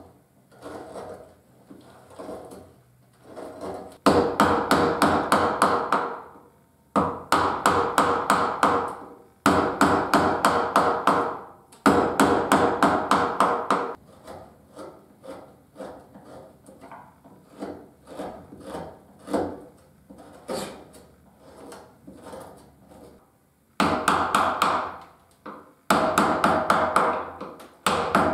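Carving gouge driven into cherry wood with a mallet: runs of quick taps, about five a second, lasting a couple of seconds each. They come in four runs after about four seconds and again near the end, with quieter hand-pushed paring cuts in between.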